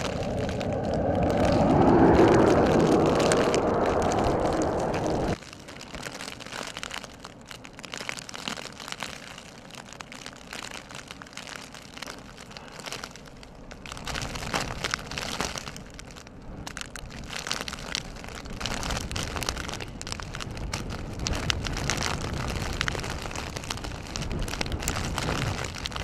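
Strong blizzard wind gusting and buffeting the microphone, with a low rumble and crackle. The level drops suddenly about five seconds in, then swells again in gusts near the end.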